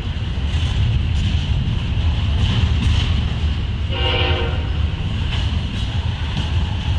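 Freight trains passing on parallel tracks, the intermodal double-stack well cars and autorack cars making a steady low rumble with irregular clacks of wheels over the rail joints. A short tonal blast sounds about four seconds in.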